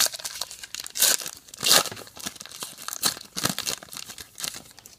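Trading card pack wrapper being torn open and crinkled in the hands, with the loudest rips about one and nearly two seconds in.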